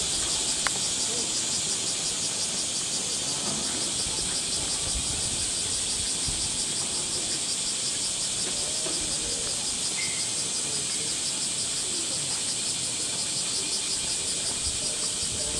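Chorus of summer cicadas: a steady, high-pitched drone with a fast, even pulse throughout.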